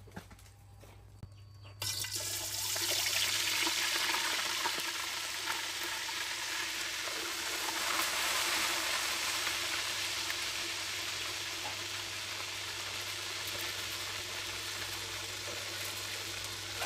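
Pot of soup boiling on the fire, a steady bubbling hiss that starts suddenly about two seconds in.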